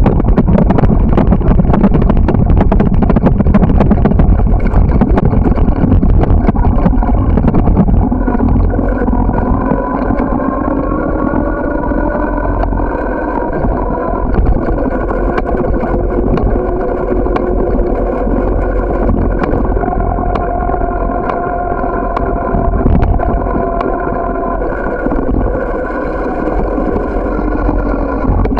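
Bicycle riding noise on a paved path: wind buffeting the microphone, with a pitched whir that drifts slowly up and down with speed. Rattles and knocks come through over the first eight seconds or so, after which it settles a little quieter.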